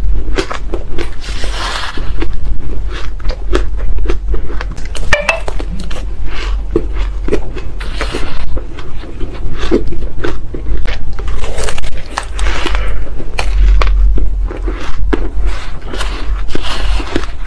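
Shaved ice crunching close to a clip-on microphone: mouthfuls being chewed and a metal spoon digging and scraping into a heaped bowl of it, with many sharp crackles throughout.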